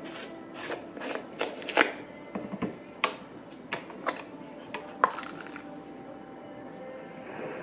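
Plastic screw cap being twisted off a glass jar: a run of small clicks and scrapes, with a sharper knock about five seconds in, then quieter.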